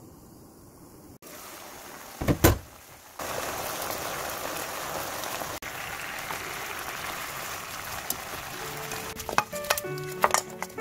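Soy-based braising sauce sizzling and bubbling in a frying pan as it reduces down around pork back ribs. There is a single loud thump about two seconds in. Near the end, sharp knocks and clatter from the pan being tossed on the stove.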